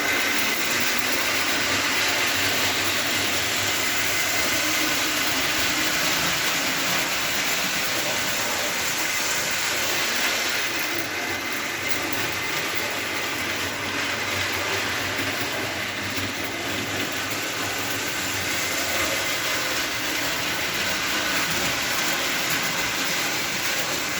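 Custom prewar-style toy train locomotive, driven by a Lionel 249 motor through spur gears, running around the track: a steady whir of motor and gears with a thin whine and the rattle of wheels rolling on rail. It eases a little midway and comes back up as the train circles the layout.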